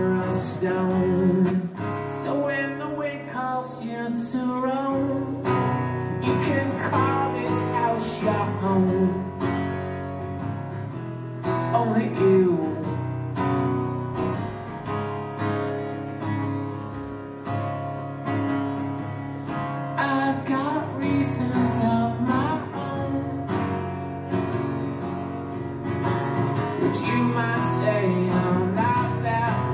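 Live solo song: a man singing over a strummed acoustic guitar, amplified through the hall's PA.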